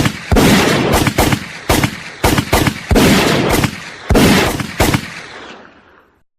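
Gunfire sound effect: about a dozen loud shots at uneven spacing, each with a booming tail, the last one about five seconds in and then dying away.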